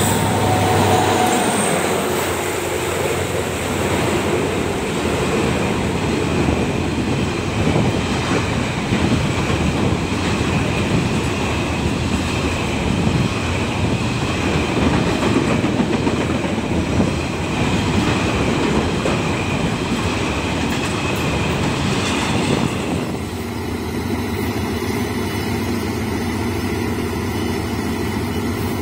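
Diesel freight locomotive passing, followed by a long train of container wagons rolling by with steady wheel clatter on the rails. About 23 seconds in, the sound changes abruptly to a diesel locomotive idling steadily.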